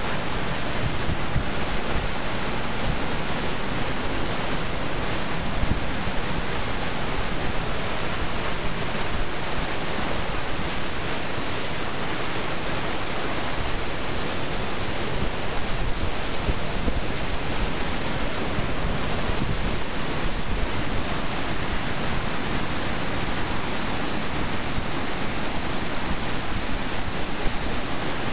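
A creek in flood: fast, churning floodwater rushing in a steady, unbroken wash of noise.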